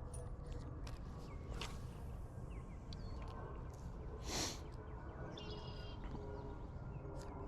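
Outdoor ambience: short high bird chirps and a brief call over a steady low rumble, with a single short whoosh a little past the middle.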